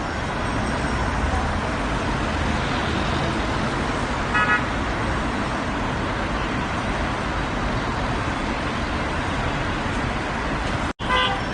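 Steady road traffic noise with a short car horn toot about four seconds in. Near the end the sound cuts out for an instant, then another short honk starts.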